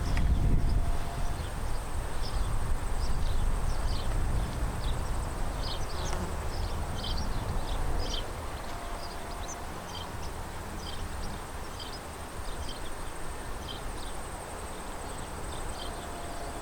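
Outdoor ambience: a low rumble of wind on the microphone that eases off about halfway through. Short high chirps are scattered throughout, with a thin, steady high whine.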